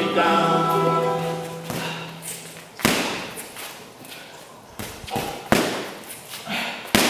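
Punches landing on a hanging heavy bag: a series of sharp thuds at an uneven pace, about half a dozen, the loudest near the middle and at the very end. Singing is heard under the first couple of seconds and then fades out.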